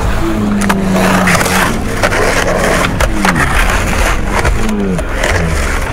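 Skateboard wheels rolling and grinding on concrete, with a few sharp clacks of the board popping and landing.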